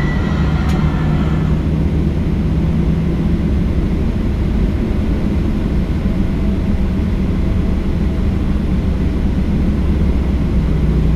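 Steady low rumble and hum of a Boeing 737-800's CFM56 engines heard from inside the cabin while the airliner taxis.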